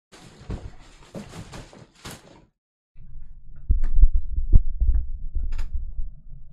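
Desk handling noise: a couple of seconds of clicking and rustling, then a low rumbling with heavy thumps, loudest about four to six seconds in.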